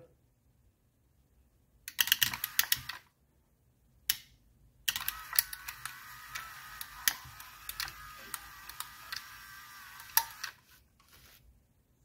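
Hirschmann power antenna motor running on the bench, a whirring with rapid ticking for about five seconds as it winds the plastic mast back into its housing, then stopping. About two seconds in there is a second of rapid clicking.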